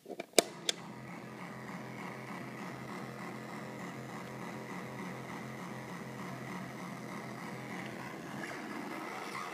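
Two sharp pops as a homemade two-in-one guitar effects pedal is switched on, then a steady low electric buzz from its output, with a faint high whine and hiss that grows slightly near the end.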